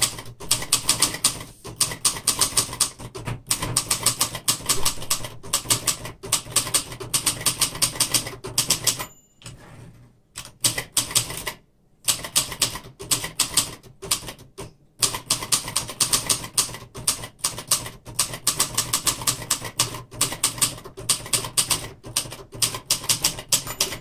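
A 1960s Royal Mercury portable manual typewriter being typed on fast, with rapid clacking of keys and typebars striking, and two short pauses about halfway through. The machine keeps up with the fast typing.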